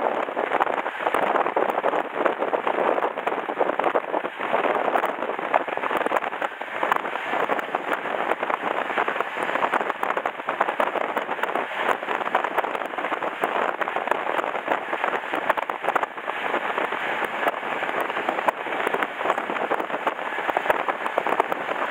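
Passenger train running at speed, heard from the open side of the carriage: a steady rushing rattle of wheels on the rails and passing air, densely flecked with small clicks.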